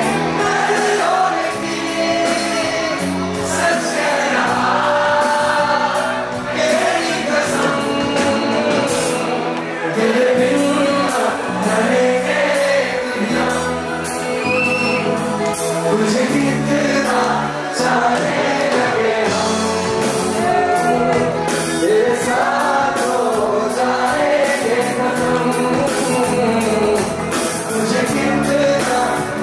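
A male vocalist singing live with a band behind him: electric bass and drums with hand percussion, loud and continuous.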